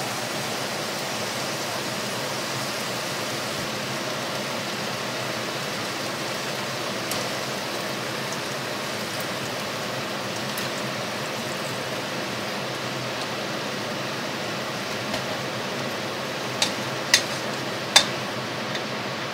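Steady hiss of Chinese cabbage and mushrooms cooking in a pot on a gas hob. Near the end come three sharp knocks of a wooden spoon against the pot as the vegetables are stirred.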